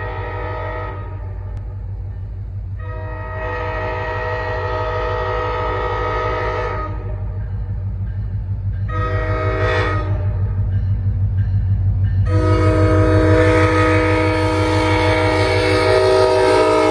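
Virginia Railway Express locomotive V54 sounding its multi-note air horn for a grade crossing. The end of one long blast is followed by another long blast, a short one, and a final long blast held as the train arrives, all over a steady low rumble that grows louder.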